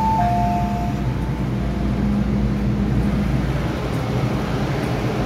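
A two-note electronic chime on an MTR M-Train, high then lower, sounding once at the start and fading within about a second and a half. Under it, the steady low hum and rumble of the train standing at the platform.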